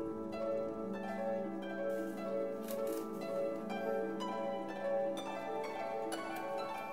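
Instrumental background music: a steady run of plucked string notes over a held low note.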